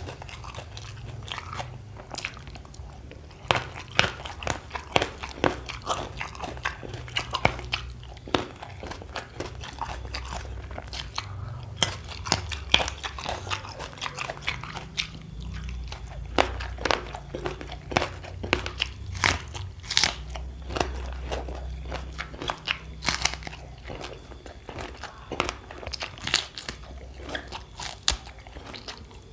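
Close-up crunchy biting and chewing of raw lalapan and crackers, many irregular crisp crunches in quick succession over a faint low hum.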